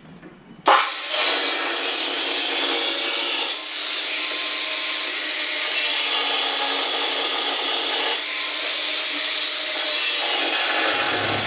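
A power tool working steadily against a workpiece: a harsh, even rasping noise that starts abruptly under a second in and holds on, dipping slightly twice.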